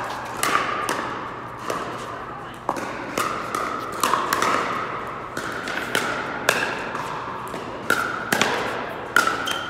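Pickleball paddles striking a hard plastic pickleball in a rally: a dozen or so sharp, hollow pops at irregular spacing, each ringing briefly.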